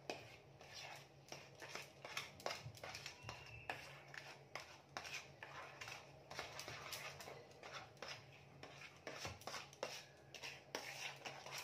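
A fork mashing ripe bananas and sugar in a bowl, with quick, irregular faint clicks and scrapes against the bowl over a low steady hum.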